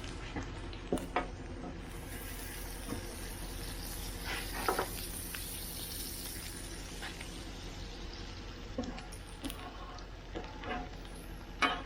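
Food frying on a Blackstone flat-top griddle: a steady sizzle that grows brighter from about two seconds in until about seven seconds, with a few short clicks and scrapes over it.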